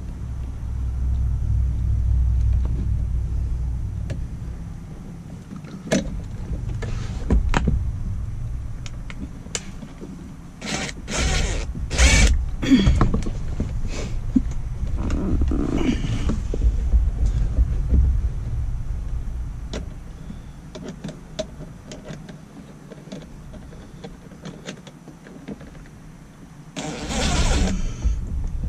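Cordless drill-driver running in short runs, with clicks and knocks of tool against housing, as a mounting screw is driven into a car's heater blower motor housing under the dashboard; a louder, longer run comes near the end.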